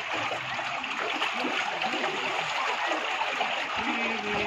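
Steady rushing and splashing of water, with sloshing from a man wading waist-deep and lifting a mesh fishing net out of it.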